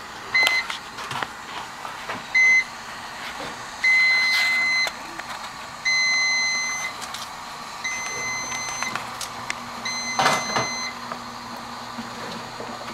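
Hospital equipment alarm beeping a single high tone: a few short beeps, then about one-second beeps every two seconds.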